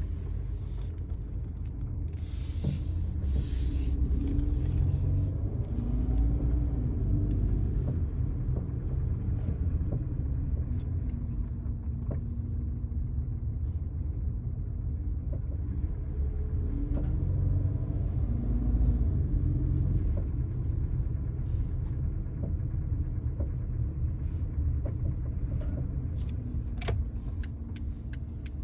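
2012 Kia Forte driving slowly, with steady low rumble and engine pitch rising and falling a few times. Scattered faint knocks: the light clunking that appears at 5-15 mph, its source not yet found.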